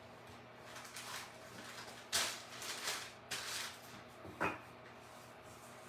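A clothes iron sliding over tracing paper, with a few soft swishes and paper rustles, the loudest about two and three and a half seconds in.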